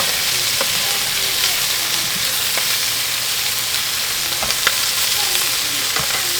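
Seasoned chicken pieces sizzling as they brown in a pot: a steady frying hiss with a few small pops.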